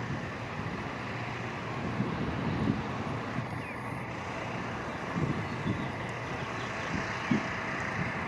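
Steady vehicle noise with an uneven low rumble.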